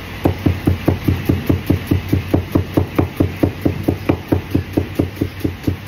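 A heavy cleaver chopping fast on a plastic cutting board: a steady run of sharp knocks, about six a second.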